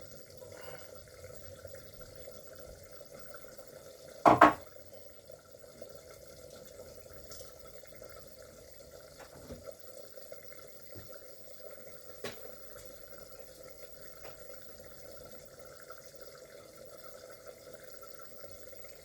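Faint steady hum and hiss of kitchen background, with one short loud knock about four seconds in and a faint click later on.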